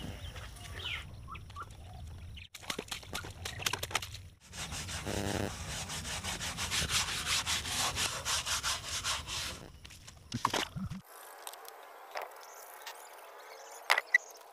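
Hand-scrubbing a wet, soapy motorcycle wheel and tyre: quick rubbing strokes, loudest in the middle, that stop and start abruptly, with a few sharp clicks near the end.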